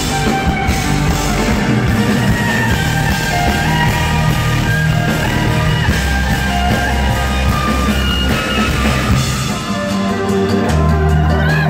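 Electric violin playing a sustained melody live over loud backing music with drums and heavy bass, with a rising slide near the end.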